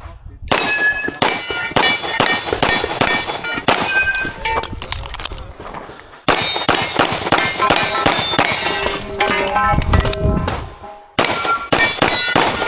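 Rapid pistol fire at steel targets: quick strings of sharp shots, many followed by the ringing clang of hit steel plates. The firing breaks briefly about six seconds in and again about eleven seconds in.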